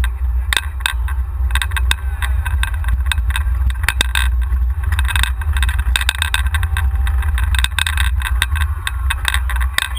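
Golf cart riding over pavement with a camera mounted on it: a heavy low rumble of wind and motion on the microphone, with frequent sharp rattles and clicks from the cart and mount.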